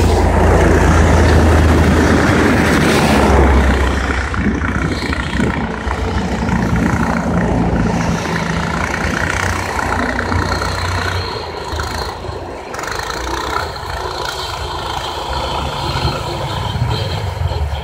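Engine of an amphibious motorized snow tow running as it drives across snow towing a sled. There is a steady low engine note throughout, loudest in the first few seconds.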